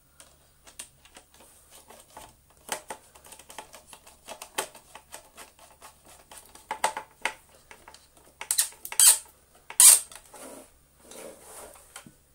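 Plastic parts of a Gtech AirRam cordless vacuum being handled and pushed together on a bench: an uneven run of small clicks and taps, with a few louder clacks at about nine and ten seconds in.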